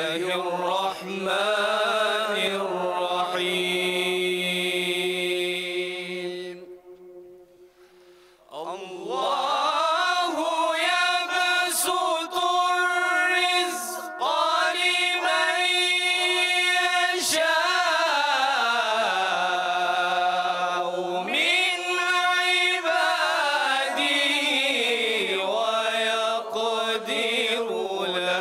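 Group recitation of the Quran with tajweed, many voices chanting in unison in long, melodic held phrases that rise and fall slowly in pitch. The voices break off for about two seconds about a quarter of the way in, then take up the next phrase.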